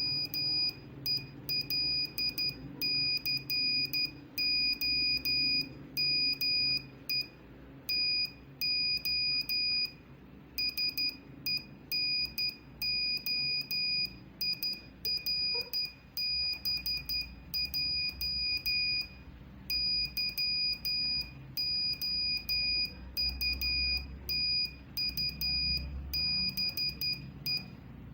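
Morse code (CW) tone at about 10 words per minute: a single high-pitched beep keyed on and off in dots and dashes, with longer gaps between words.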